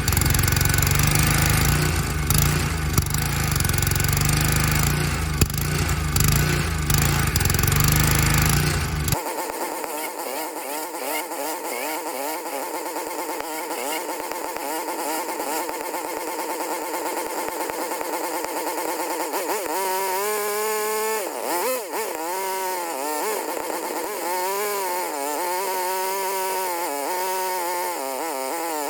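Honda small engine on a Kärcher pressure washer running; about nine seconds in the sound drops abruptly to a quieter, thinner running, and in the last several seconds the engine speed rises and falls over and over. The engine is surging rather than holding a steady speed, a fault the owner puts down to the carburettor or governor.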